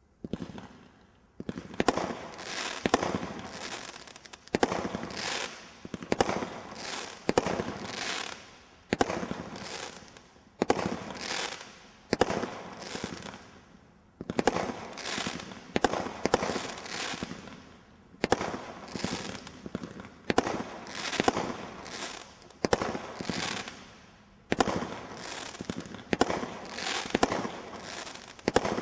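A 19-shot Category 2 combination roman candle firework cake ('Ninjas' by Brothers Pyrotechnics) firing shot after shot. It starts about a second and a half in; each shot is a sharp crack trailing off in a fading hiss, about one or two a second, with brief pauses twice along the way.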